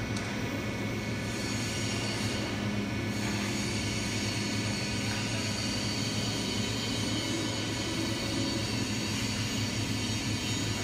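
Cement-mixer and pressure-vessel plate flip machine running as its arms turn a large sheet-metal plate: a steady mechanical hum with several constant whining tones, and a hiss that gets stronger about a second in.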